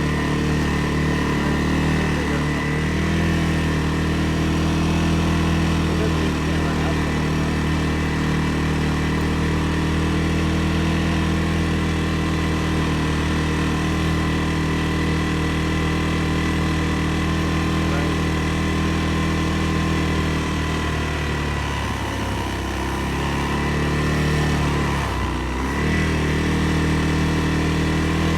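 CFMoto CF600 ATV engine running steadily while riding along a trail, its pitch dipping briefly twice near the end as the throttle eases off.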